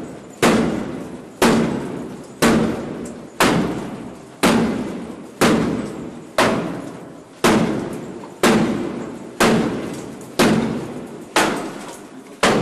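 Masked police officers battering a door to force it open: heavy blows land about once a second in a steady rhythm, about a dozen in all, each leaving a short ringing echo.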